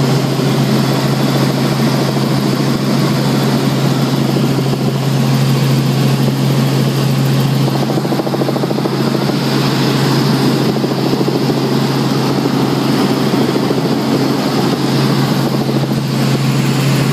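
Helicopter in flight, heard from inside the cabin: a steady, unbroken low hum from the engine and rotor under a constant rushing noise.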